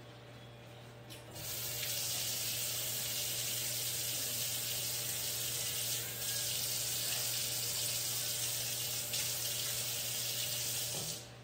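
Kitchen sink faucet running while hands are washed under it: a steady rush of water that starts about a second in and shuts off abruptly near the end.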